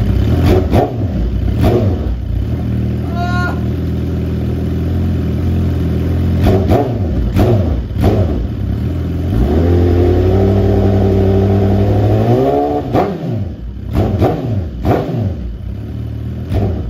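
2018 Suzuki GSX-R1000's inline-four engine breathing through a Brock's Penta-Carbon full-system exhaust, idling and being revved: quick throttle blips, a rev held higher for a few seconds in the middle, then more sharp blips near the end.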